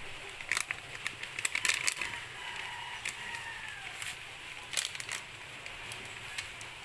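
Scattered light clicks and crackles of a foil sachet and an aluminium pot being handled while gelatin powder is poured in, with a cluster of clicks about a second and a half in.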